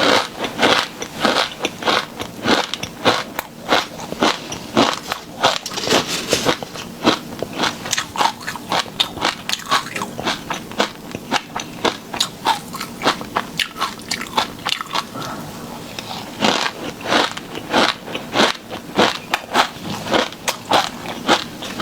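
Close-miked eating sounds of sauced shrimp being eaten: repeated crunchy bites and wet chewing, thinning out briefly about two thirds of the way through.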